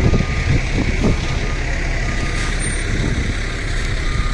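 A large vehicle's engine running steadily, with a short high beeping tone sounding on and off.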